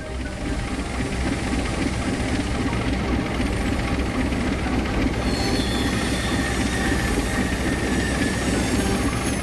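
A train passing at speed: a steady rumble of locomotive and wheels on the rails, with a thin, high wheel squeal coming in about halfway through.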